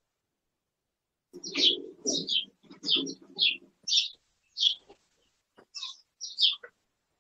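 Bird chirping: about nine short, high chirps, each falling in pitch, starting about a second in, with a low buzzing noise under the first few.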